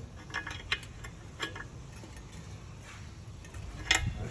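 Several short sharp clicks and knocks, a few early on and a louder one near the end, over a low steady hum.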